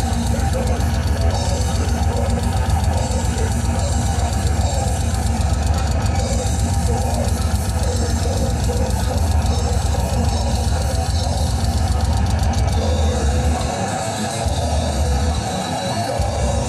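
A live death metal band playing loud and dense, with distorted guitars and drums over a heavy bass. The low end cuts out in short gaps near the end.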